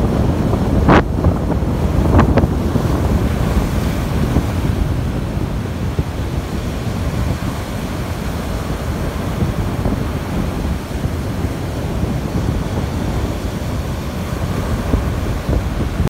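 Strong wind buffeting the microphone over the steady wash of choppy surf breaking on a sandy beach, with two brief louder surges about one and two seconds in.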